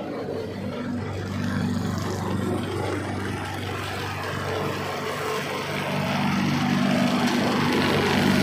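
Steady mechanical hum of a motor-driven concrete vibrating table, growing louder over the last few seconds.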